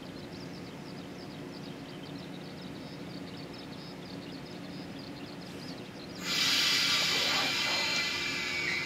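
A stopped yellow 115-series electric train humming steadily at the platform; about six seconds in, a loud hiss of compressed air bursts out and lasts about two and a half seconds, the air brakes releasing just before the train pulls away.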